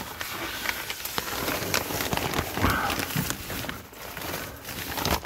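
Plastic vapor barrier sheeting crinkling and rustling under a person crawling across it, with rapid crackles and scuffs throughout.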